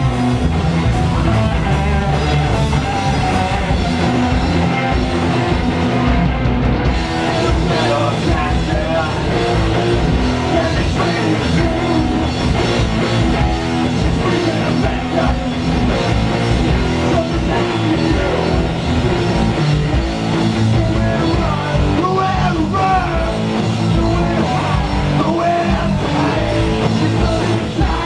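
A heavy metal band playing live and loud: distorted electric guitars, bass guitar and a drum kit, without a pause.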